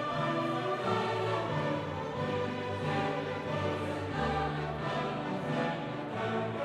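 Background classical-style music: orchestra with choir voices holding long, slowly changing notes.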